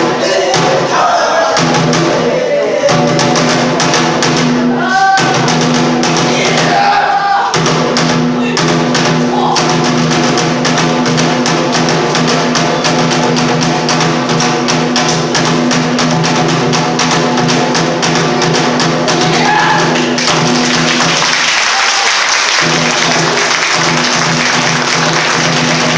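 Kagura accompaniment: rapid, dense drum strokes under held tones, with chanted singing in the first several seconds. Near the end, applause rises over the music.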